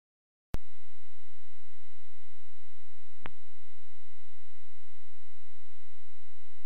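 A steady electronic tone over a low hum and hiss, starting abruptly about half a second in, with a single click about three seconds in.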